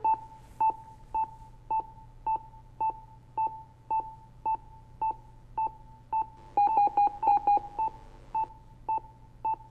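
Anaesthetic patient monitor giving its short pulse beep with each heartbeat, just under two beeps a second (about 108 a minute), over a low hum. A little past halfway, a quick run of slightly lower alarm beeps sounds for about a second over the pulse beeps. This is a low blood-pressure alarm as the pressure falls to 82/55 after a spinal anaesthetic.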